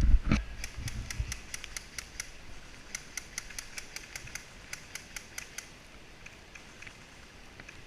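A thump, then a quick run of sharp mechanical clicks, about four or five a second, in two spells that die away after about five seconds, from airsoft gear.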